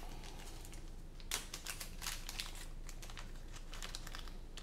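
Small plastic hardware bag crinkling as it is opened and handled, with a quick run of crackles about a second in and a few scattered ones after.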